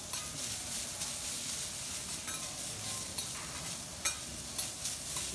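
Bean sprouts and greens sizzling on a steel teppanyaki griddle while two metal spatulas scrape and tap across the plate, gathering and turning them; the sharpest tap comes about four seconds in.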